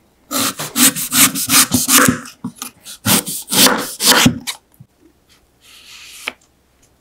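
Kitchen knife slicing a raw sweet potato into thin rounds on a wooden cutting board: two quick runs of crisp cuts, each ending with a tap on the board. Near the end comes a soft brushing as the slices are spread out by hand, ending in a click.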